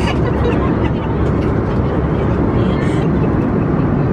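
Steady cabin noise inside a passenger airliner: an even, low rush with no breaks.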